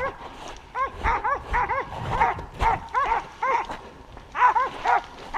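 Hunting dogs barking in quick runs of high yelps, about three or four a second, with short breaks between the runs.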